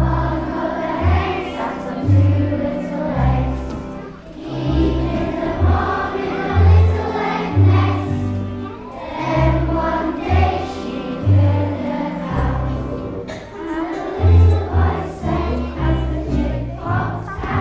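A large group of young children singing a song together over an accompaniment with a steady, prominent bass line.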